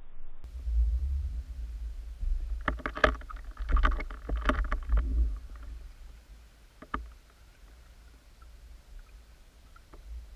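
Muffled underwater rumble picked up through an action camera's waterproof housing, with a cluster of knocks and rattles about three to five seconds in, then single sharp clicks near seven and ten seconds.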